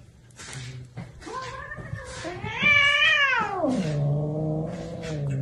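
A cat yowling: a long, wavering call that climbs in pitch about a second in, peaks, then drops steeply into a low, drawn-out growl.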